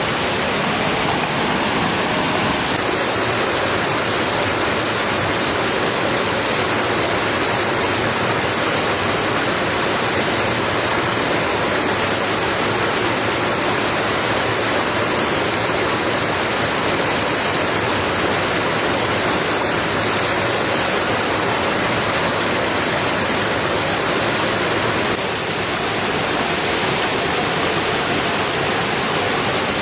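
Heavy rain falling steadily, a dense, even rush of water.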